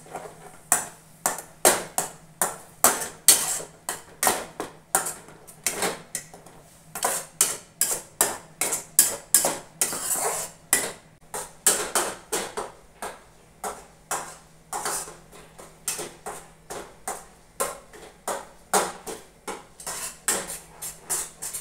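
Spatula scraping and knocking against a non-stick kadai while stirring thick raw-mango pulp, in quick strokes about twice a second.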